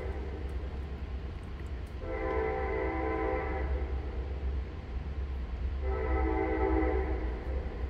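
Train horn sounding two long blasts, each about a second and a half, with a pause of about two seconds between them, over a steady low rumble.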